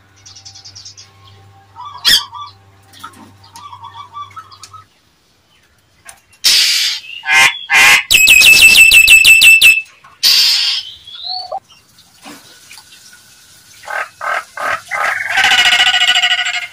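Nias hill myna calling loudly in a varied series: harsh squawks, then a fast rattling run of about a dozen notes about halfway through, then a short rising whistle and a string of ringing whistled notes near the end.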